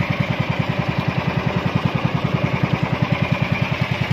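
Engine of a motorised outrigger fishing boat running steadily under way, a rapid, even pulsing beat that does not change in speed.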